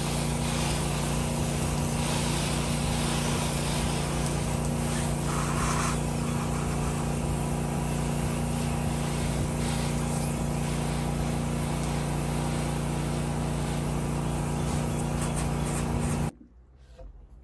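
Pressure washer engine running steadily under an even hiss, cutting off abruptly near the end.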